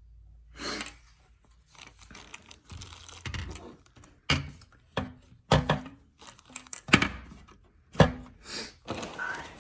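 Cardboard box and packaging of a graphics card being handled: rustling and crinkling, then a string of sharp knocks and thuds, the loudest from about four seconds in.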